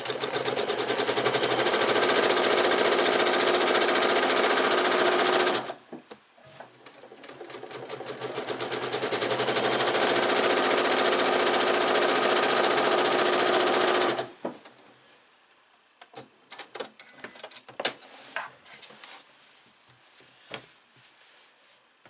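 Janome Memory Craft 8200 sewing machine stitching through quilted fabric in two runs: it runs steadily for about five and a half seconds, stops briefly, then speeds up again and runs about six more seconds before stopping abruptly. Faint clicks and fabric rustling follow.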